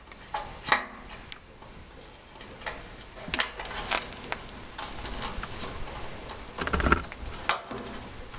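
Crickets chirping steadily in the background, with scattered clicks and knocks of parts and tools being handled; the loudest is a thud with a short rattle about seven seconds in, followed by a sharp click.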